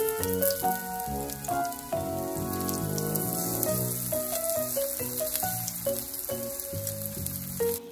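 Kimchi pancake batter frying in hot oil in a pan, a steady sizzling crackle as more batter is spooned in. Background music with a melody and chords plays over it.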